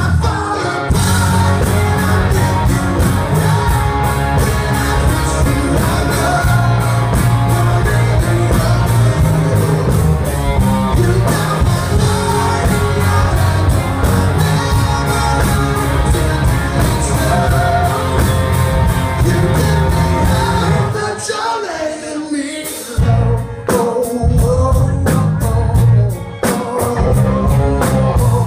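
Live rock song: a male lead vocal over guitar and bass. About three-quarters through, the low end drops away for a moment, then the band comes back in with sharp hits.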